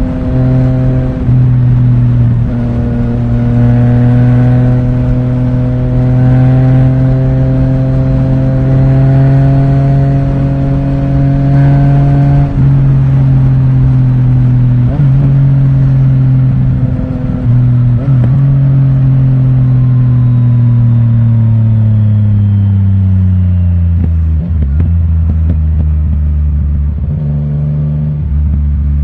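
Yamaha Tracer 900 GT's 847 cc inline-three engine running through an Akrapovic titanium full exhaust with the dB killer removed, heard onboard while riding. It holds steady revs for about twelve seconds, then the revs fall away as the bike slows to a low, near-idle note, and they rise again near the end as it pulls away.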